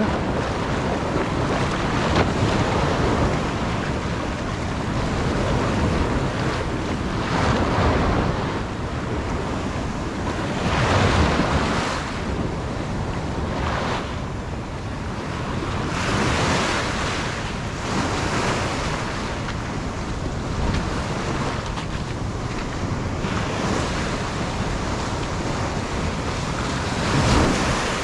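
Ocean surf washing in over the shore, a steady rushing that swells louder each time a wave surges in, every few seconds. Wind buffets the camera's microphone.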